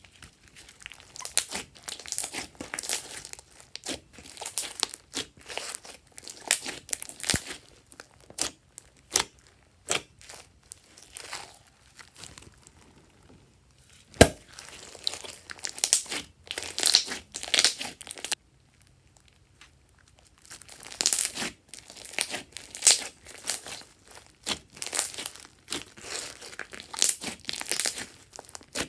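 Hands squishing, stretching and pressing a big mass of glossy slime mixed with small beads, giving clusters of quick wet clicks and pops as air pockets burst. One sharp pop about halfway through is the loudest, and the sound pauses for about two seconds a little later.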